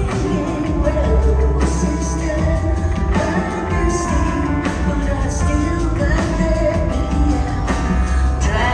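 Live performance of a song: a woman singing over keyboard-led band accompaniment, with strong beats about every second and a half.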